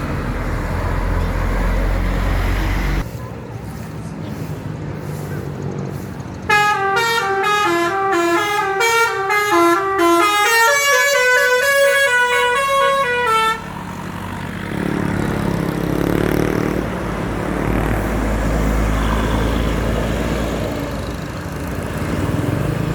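Bus telolet horn playing a fast tune of stepping notes for about seven seconds, starting suddenly about six seconds in and cutting off sharply. Before and after it, bus engine and road noise.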